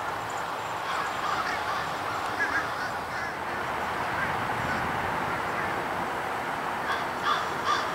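EMD GP30 diesel locomotive moving slowly past with its passenger cars, the engine's steady noise mixed with many short, squeaky chirps.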